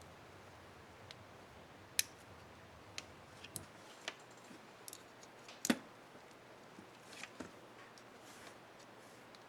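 Irregular small plastic clicks and snaps from a laptop keyboard's spacebar keycap and its clips being fitted and pressed, with two sharper snaps about two seconds in and just before six seconds.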